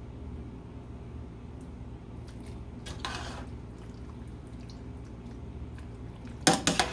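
Metal slotted spoon stirring thick, creamy pasta with sauce in a stainless-steel pot: soft wet squelching, then three or four sharp knocks of the spoon against the pot near the end, over a steady low hum.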